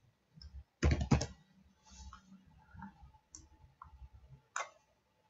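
Computer keyboard typing and mouse clicks: a quick run of keystrokes about a second in, then a few single clicks.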